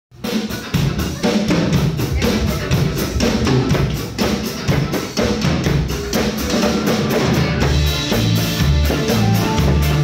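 Live band playing: a drum kit keeps a steady beat with bass drum and snare over a heavy bass line, with electric guitar and keyboards; the sustained instrument tones come up more strongly near the end.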